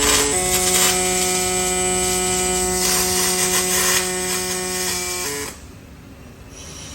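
Robotic arc welding torch running a weld: a steady electric buzz over a hiss that stops abruptly about five and a half seconds in as the arc goes out.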